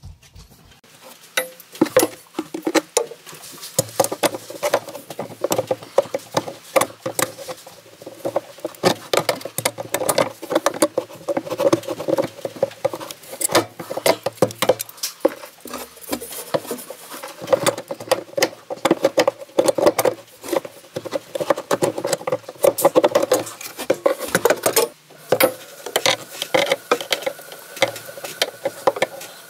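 Tongue-and-groove pliers and a screwdriver working the old black ABS shower drain fitting, making rapid irregular clicks, taps and scrapes of metal on plastic as the drain is worked loose, over a steady low hum.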